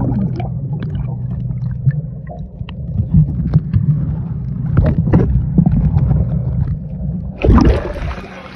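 Muffled low rumble and scattered clicks picked up by a phone microphone in a waterproof case held underwater in a swimming pool. About seven and a half seconds in, the phone breaks the surface with a splash and the full open-air sound of the pool returns.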